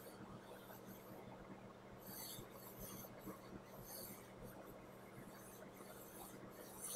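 Near silence: faint room tone with a steady low electrical hum.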